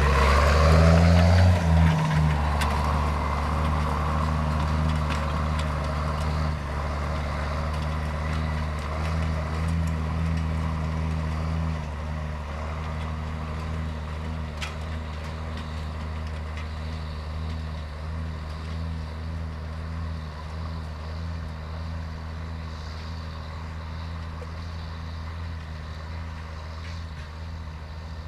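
Farm tractor's diesel engine running steadily, with a brief change in pitch about a second in, then gradually fading.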